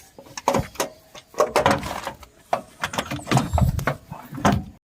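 Irregular metal knocks, clanks and scraping as a starter motor is manoeuvred against the engine and bellhousing while being worked into place. Sound cuts off abruptly near the end.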